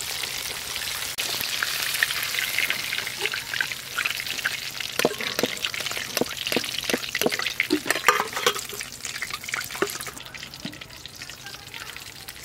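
Batter-coated chicken pieces deep-frying in hot oil in a metal karahi, sizzling steadily as they are turned and lifted with a spatula and slotted spoon. Sharp crackles and pops come thick between about five and ten seconds in, and the frying is quieter near the end.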